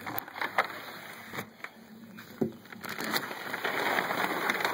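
Handling noise close to the microphone: a few sharp knocks and clicks against a window frame and screen, then a rustling rub toward the end.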